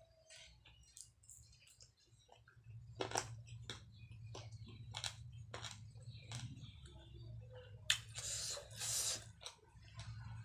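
Close-up mouth sounds of chewing a mouthful of cheese ramen noodles: scattered wet smacks and clicks, with a longer hiss lasting about a second near the end.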